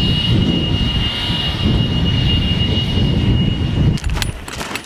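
A handheld blower runs steadily with a thin high whine, clearing dirt off the top of a concrete foundation wall, and cuts off about four seconds in. Strong wind rumbles on the microphone throughout, and a few light clicks follow the blower.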